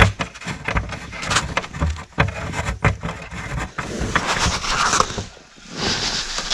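Irregular clicking and scraping of a hand tool driving a bolt that holds a car's dash panel, followed by rustling as the panel is handled.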